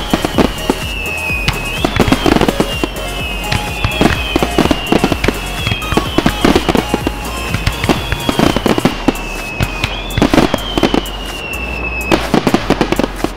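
Fireworks display: rapid, overlapping aerial shell bursts and crackling, with a high whistle that falls slowly in pitch and starts again about every two seconds.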